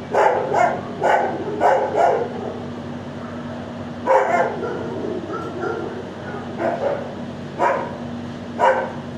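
Dogs barking in short, separate barks: a quick run of about five in the first two seconds, one more about four seconds in, and three spaced about a second apart near the end. A steady low hum runs underneath.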